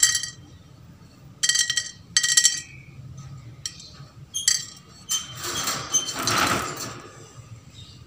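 Wire rabbit cage rattling in several sharp, ringing clinks as a Holland lop rabbit bumps and pushes against the bars. About five seconds in comes a longer rustling scrape.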